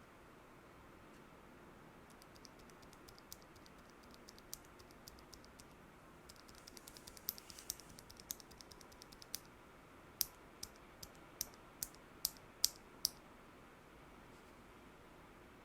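Bare Gateron Merlot tactile switches, lubed with Krytox 205g0, being pressed without keycaps. Sparse faint clicks give way to a quick run of light clacks about six seconds in, then about nine separate, louder strokes at two to three a second.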